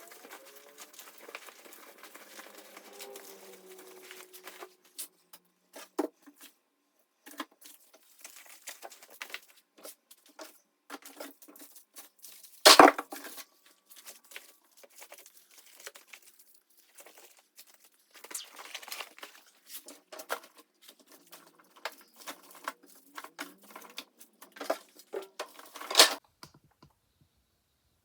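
Plastic packaging crinkling and rustling as things are handled, with many scattered clicks and two much louder sharp knocks, about thirteen seconds in and near the end.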